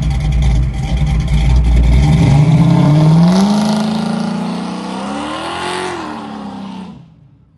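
Car doing a burnout, its engine revving hard as the rear tyres spin. The engine pitch climbs as the car pulls away, dips near the end, then fades out about seven seconds in.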